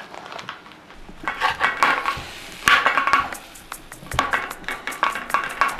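Cookware and utensils clinking and clattering: a string of light knocks and clinks, some briefly ringing, as pots and dishes are handled.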